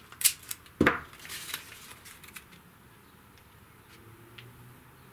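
Masking tape being handled and laid over a cardboard stencil: a sharp tick, then a knock just under a second in, with a little rustling of tape and card.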